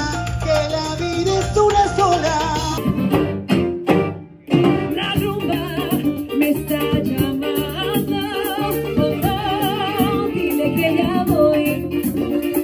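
Live music: a man singing to his own acoustic guitar, then, after a short break about four seconds in, a Latin band playing with a woman singing over drums and congas.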